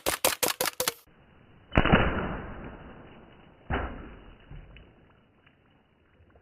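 Pellet gun shots: a rapid string of about eight sharp cracks in the first second, then two loud single shots, each with a long tail that fades slowly over a second or more.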